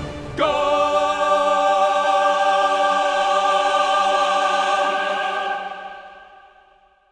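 Choir and orchestra holding a final sustained chord that fades away to silence over the last two seconds.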